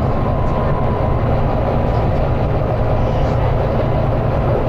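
Volvo B9TL bus's 9-litre straight-six diesel running hard under load, heard from inside the bus: a loud, steady low drone with road noise, plus a faint thin whine in the first second or so.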